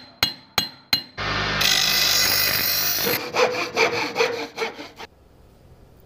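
Intro sound effects: three sharp ringing strikes in quick succession, then a loud steady hiss for about two seconds, then a run of fast saw strokes that stops about five seconds in.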